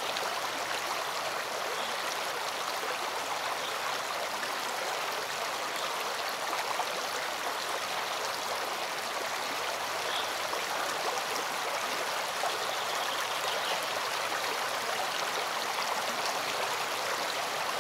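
A rocky stream flowing over stones and a small cascade: a steady, unbroken rush of water.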